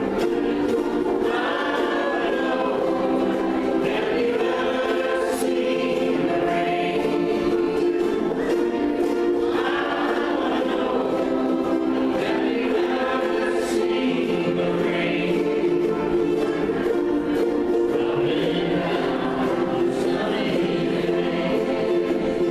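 Many ukuleles strummed together by a large group, with a crowd of voices singing along.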